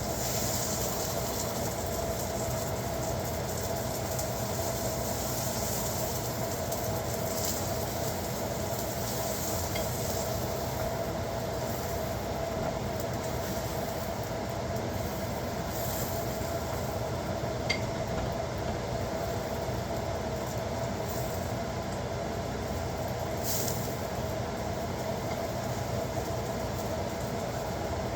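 Kitchen fans running: a steady whooshing noise with a constant hum, with food sizzling faintly on the pan beneath it and a brief click about two-thirds of the way through.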